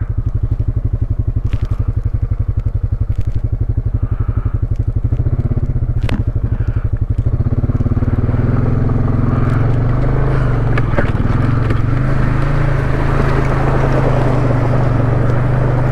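ATV engine running at low throttle with a steady, even putter, then opening up about halfway through as the four-wheeler pulls ahead through the mud, the note growing fuller and louder. There is a single sharp click a little before the engine picks up.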